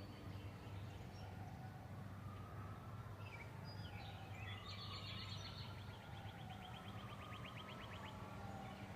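Faint backyard birdsong: scattered high chirps, and about halfway through a rapid trill of evenly repeated notes lasting about three seconds, over a steady low hum.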